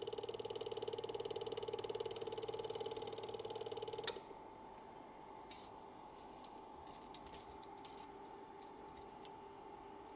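Film projector running with a rapid, even mechanical clatter, which stops with a sharp click about four seconds in; after that only faint scattered clicks and pops remain.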